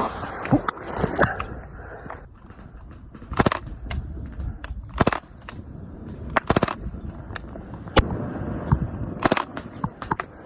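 Hardball guns firing short rapid bursts and single shots, a few seconds apart.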